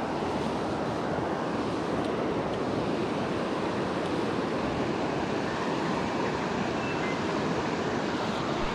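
Steady rush of a river running over a stony bed, an even noise without a break.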